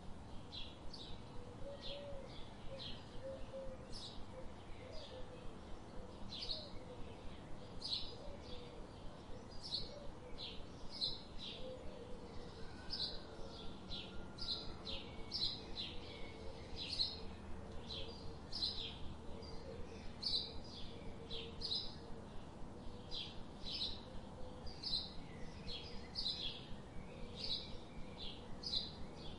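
Short high chirps repeating evenly, about one and a half a second, with a fainter, lower warbling sound underneath.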